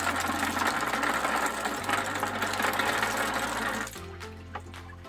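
Plastic filter bio balls pouring from a bucket into a cloth filter bag, a dense clattering rattle that stops about four seconds in. Background music plays underneath.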